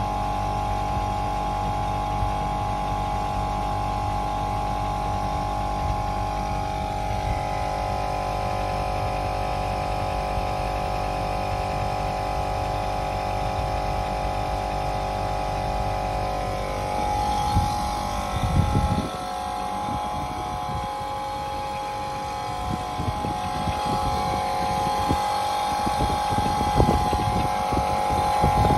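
A machine running with a steady hum made of several held tones. From about two-thirds of the way in, irregular low rumbles and bumps join it.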